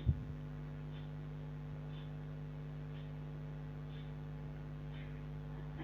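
Steady electrical hum with a faint tick about once a second.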